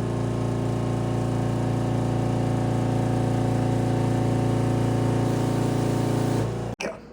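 A small electric shop motor running at a steady speed with an even hum, then cutting off abruptly near the end.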